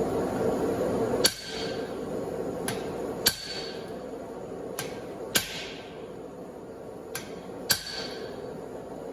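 Hand hammer blows on hot steel at the anvil, driving a punch to open the eye of a hammer-head blank. Four heavy strikes come about two seconds apart, each with a lighter tap just before it and a short metallic ring after.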